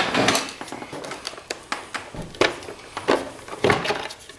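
Plastic clicks and knocks as the top cover of a CPAP machine is worked loose and lifted off, with a few sharper knocks in the second half.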